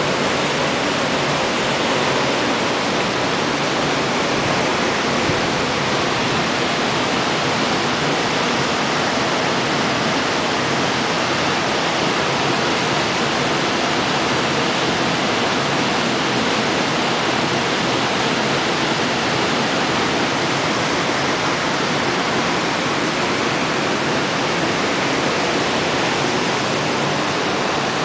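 Waterfall: water falling and splashing into a pool in a steady, dense rush.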